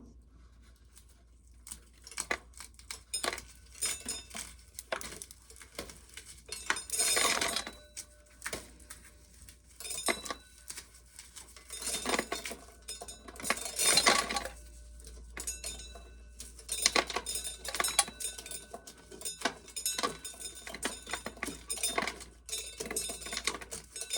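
Dried corn being shelled, the kernels clicking and clattering into a container in irregular bursts.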